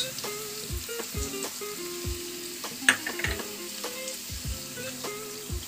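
Ginger-garlic-green-chilli paste sizzling as it fries in oil in a non-stick pan, with coriander powder just added on top. About three seconds in there is a single sharp tap.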